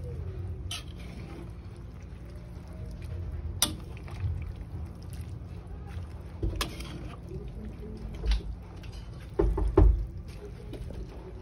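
Metal tongs turning alugbati leaves in a metal pan, with a few sharp clicks of metal on metal and a cluster of heavier knocks near the end, over a steady low rumble.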